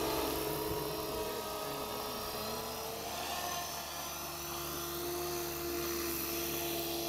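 Align T-Rex 500 electric RC helicopter in an Airwolf scale body, its motor and main rotor giving a steady high whine and whir as it comes down low to land. The pitch drops slightly about halfway through.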